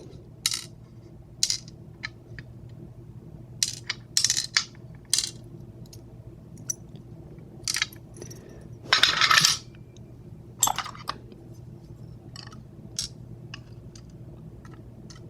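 Small metal lock pins from a disassembled Master Lock Pro Series 6321 padlock clicking and clinking as they are tipped out and handled on a hard surface: a dozen or so separate light clicks, with a short clatter about nine seconds in.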